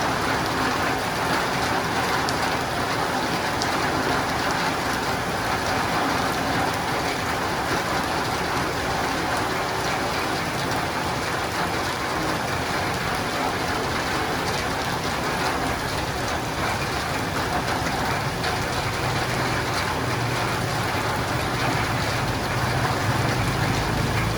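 Steady rain falling on a roof and windows, an even patter without a break. A low rumble comes in about three-quarters of the way through and grows louder toward the end.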